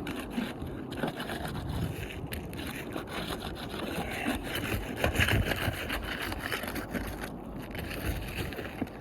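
Roofing nails being pried out from under lifted asphalt shingles: irregular scraping and clicking of tool against shingle and nail.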